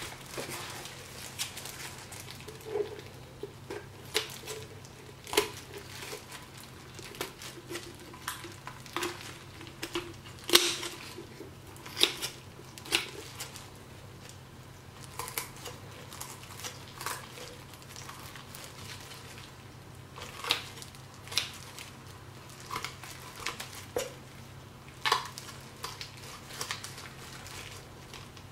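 Irregular knocks, taps and clicks of gloved hands cleaning a whole redfish on a plastic cutting board, over a steady low hum.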